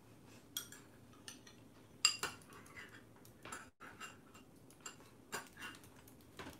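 Spoons clinking and scraping against small ceramic rice bowls while eating: faint, irregular light clicks, the loudest about two seconds in.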